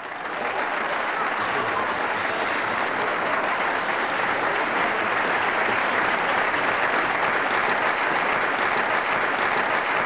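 Dense, steady applause from a large gathering of people, building up in the first half second.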